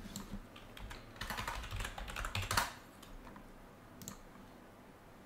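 Typing on a computer keyboard: a quick run of keystrokes from about one to two and a half seconds in, with a few single clicks before and after.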